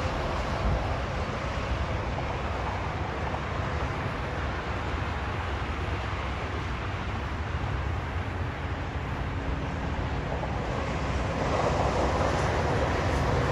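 Highway traffic crossing an overpass: a steady rumble of car and truck tyres and engines. It swells near the end as tractor-trailers pass over, bringing a faint tyre whine.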